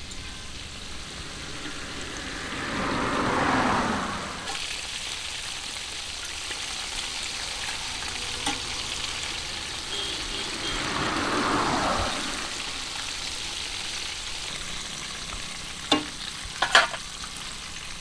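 Quail pieces deep-frying in a black iron kadai of hot oil, a steady sizzle. Two passing vehicles swell over it a few seconds apart, and a few sharp knocks come near the end.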